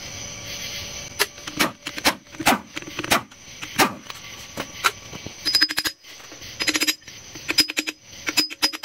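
Impact wrench running off the bolts of a Dana 30 front differential's inspection cover: four short rattling bursts of hammering, each with a steady whine, in the second half. Before them come separate metallic clicks and knocks.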